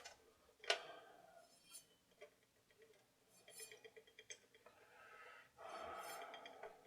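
Faint clicks and light metallic clinks from the record changer's mechanism being handled and turned by hand, with a sharper click at the start and a soft rubbing stretch near the end.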